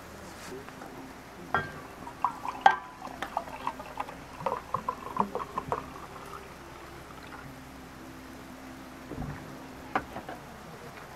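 Sparkling water poured from a green glass bottle into an insulated steel mug, glugging in quick short gulps for a few seconds after a couple of sharp clicks. A knock and a click near the end as the bottle is set down on the table.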